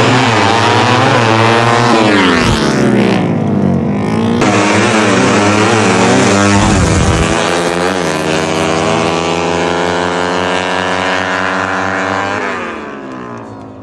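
Two drag-racing motorcycles revving their engines and then accelerating hard through the gears, the engine pitch climbing and dropping back at each shift. The engine sound fades near the end as the bikes pull away down the strip.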